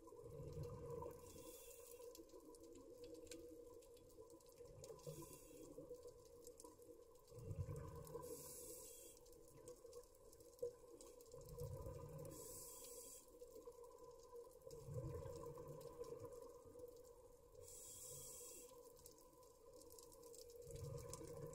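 Scuba diver's breathing heard underwater through the camera housing: the short hiss of each inhale through the regulator alternates with the low rumble of exhaled bubbles, about one breath every four seconds. A faint steady hum runs underneath.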